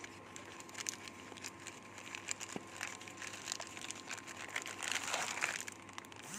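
Cardboard box and clear plastic wrapping crinkling and rustling as a ball bearing is pulled out of its packaging. The crackles grow busier and a little louder about five seconds in.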